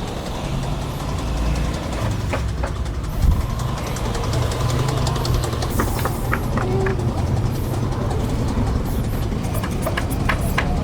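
Steady low engine rumble of motor traffic, with scattered light clicks and taps and one louder knock about three seconds in.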